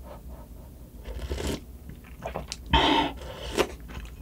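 Slurping spicy sundae gukbap broth off a spoon and chewing, with a few short slurps and clicks and a louder slurp about three seconds in. A steady low hum of wind and rain runs underneath.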